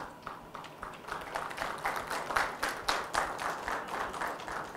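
Audience applauding, a dense patter of many hands clapping that builds over the first two seconds and then eases off.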